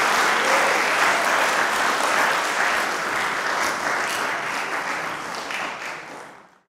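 Audience applauding, a dense patter of hand claps that slowly dies down and fades out near the end.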